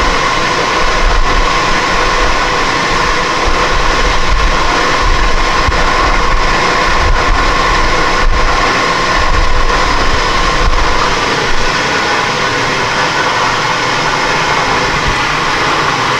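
Milling machine running steadily with its spindle turning, a constant mechanical noise with a steady whine and a low hum.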